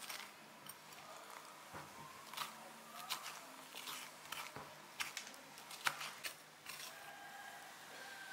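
A metal spoon scraping the seeds and stringy pulp out of a halved pumpkin, with irregular scrapes and clicks against the flesh and rind. The scraping stops about seven seconds in.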